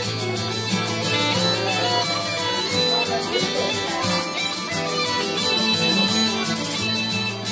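Uilleann pipes playing a traditional Irish tune: a quick melody on the chanter over a steady low drone.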